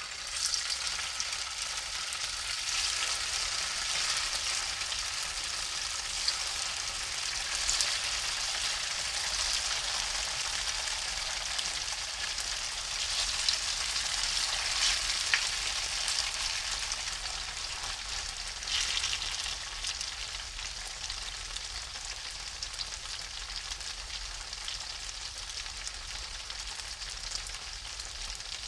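Slabs of firm tofu sizzling in hot cooking oil in a frying pan. The sizzle flares up several times as more slabs are laid into the oil, then settles into a steady fry.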